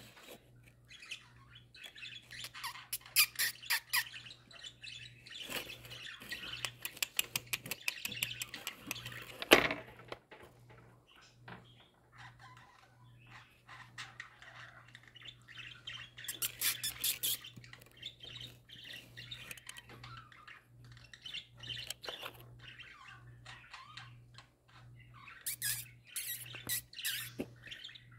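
Pet budgerigars (parakeets) chattering and warbling, in busy stretches of fast chirps and squawks, with a sharp tap about ten seconds in.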